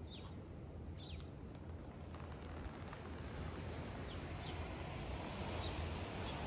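A few short, high bird chirps scattered through, over a steady background hiss and low hum.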